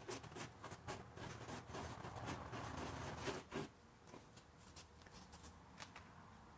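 Two-part epoxy being stirred and scraped with a mixing stick: soft scratching with small clicks for about three and a half seconds, then only a few faint ticks.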